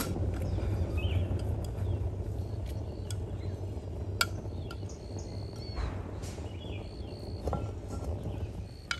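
A steady low rumble with a few sharp clinks and some faint, short high chirps.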